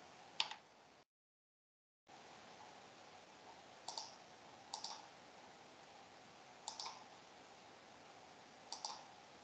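Computer mouse clicking in quick pairs, about five times, a second or two apart, over a faint steady hiss. The sound cuts out completely for about a second near the start.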